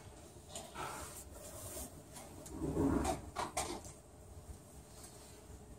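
Quiet room with faint rustling and a few light clicks and knocks from a seated group moving and handling papers, with a slightly louder shuffle about three seconds in.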